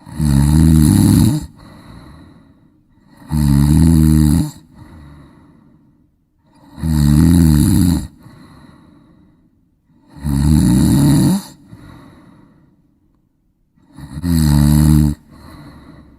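A person snoring: five loud snores, about one every three and a half seconds, each lasting a little over a second. A softer breath follows each snore.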